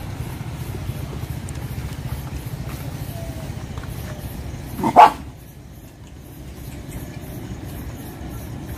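A street dog barks once, sharply, about five seconds in, over a steady low rumble.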